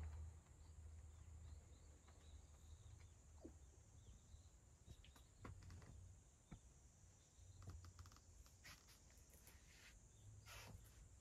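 Near silence: quiet room tone with a faint low hum and scattered faint clicks and ticks, a few of them bunched together about three-quarters of the way through.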